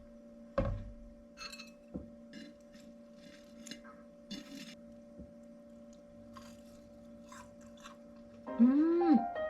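Chewing crispy fried small horse mackerel: a series of short, crisp crunches spread over several seconds. Background music swells near the end.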